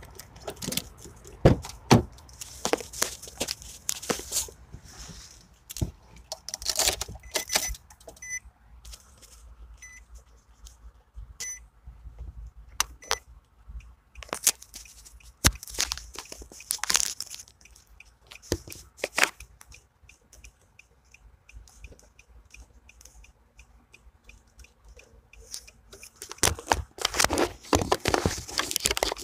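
Handling noise: irregular knocks, clicks and rustling of takeout bags and items being moved about, with a short run of beeps in the middle and busier rustling near the end.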